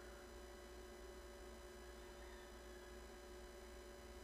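Near silence: only a faint steady electrical hum with a few constant tones.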